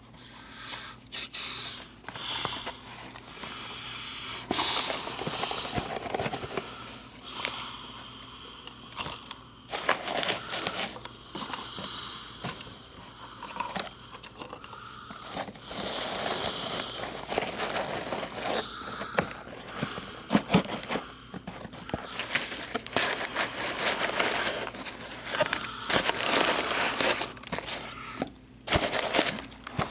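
Cardboard boxes and plastic-wrapped packaging being handled and shifted about: irregular rustling, crinkling and light knocks.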